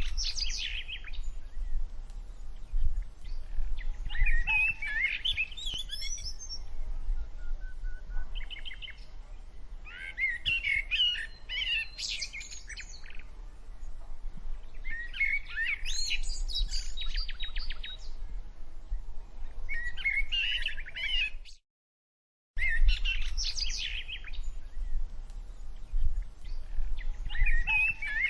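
Songbird singing: bursts of quick, warbling phrases every few seconds over a steady low rumble, cutting out completely for about a second near the end.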